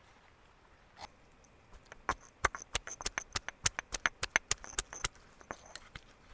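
A single sharp knock, then a rapid run of sharp knocks or taps at about six a second for roughly three seconds. They are uneven in strength and stop abruptly.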